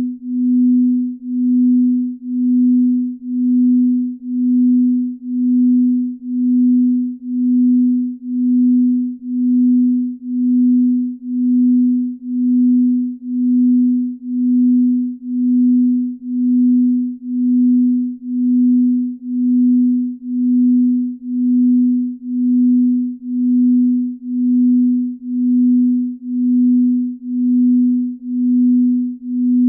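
Binaural-beat sleep tone: a single low, pure, steady tone that swells and fades about once a second, made to lull the listener to sleep.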